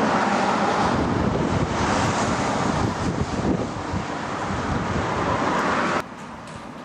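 Road traffic passing close by, heavy lorries and a van, with wind buffeting the microphone. About six seconds in, the sound drops suddenly to quieter, more distant traffic.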